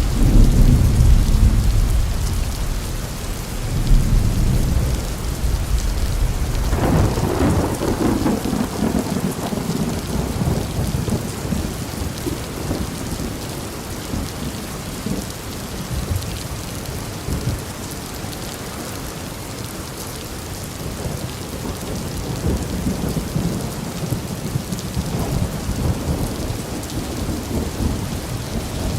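Steady heavy rain with rolling thunder: a deep rumble at the start, another at about four seconds, a larger roll of thunder beginning around six and a half seconds that fades slowly, and a further low rumble near the end.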